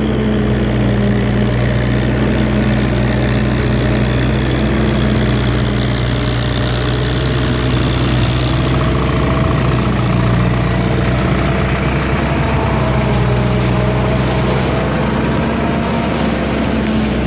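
Heavy vehicle engine running steadily at an even speed, a constant low hum that shifts slightly in pitch about halfway through.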